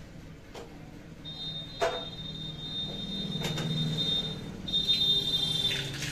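Mustard seeds start to crackle and spit in hot oil in a small tempering pan on a gas stove, with a few knocks of utensils before them. A steady high whistle-like tone holds for a few seconds, breaks off, and comes back briefly.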